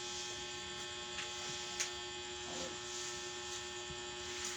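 Steady electrical hum made of several fixed tones over a light hiss, with one short sharp click a little under two seconds in.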